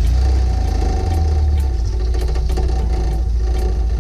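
MGB's 1.8-litre B-series four-cylinder engine running at low revs, a steady low rumble.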